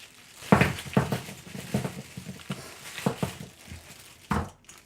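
Packaging rustling and crinkling while small hard items are handled, with about eight sharp clicks and knocks spread through, the loudest about half a second in.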